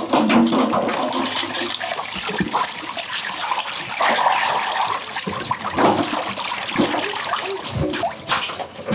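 Water sloshing and splashing in a metal basin as hands scrub and rinse pieces of cut fish, with a hose running water into it.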